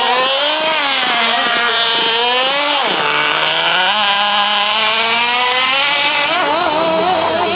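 Small two-stroke engine of a petrol-powered RC car running at high revs, its pitch rising and falling as the throttle is worked, with a sharp drop about three seconds in. A lower, steadier engine note runs underneath in the second half.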